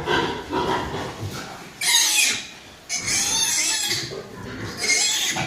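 A pig squealing in loud, shrill bursts, three long squeals in quick succession.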